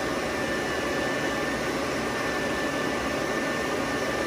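AC Infinity 6-inch inline duct fan running wide open with no hose, turned up above level six: a steady rush of air with a thin, steady whine.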